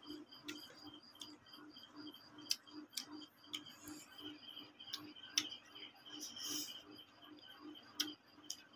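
Faint eating sounds of someone eating rice with his fingers: a few sharp mouth clicks and smacks, the loudest about two and a half, five and a half and eight seconds in. Behind them is a steady ticking pulse of about four beats a second.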